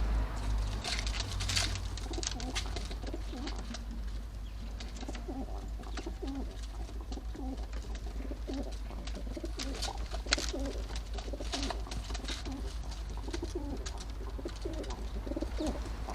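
Feral pigeons cooing over and over in low throaty notes, with occasional sharp taps and clicks, the loudest about ten seconds in.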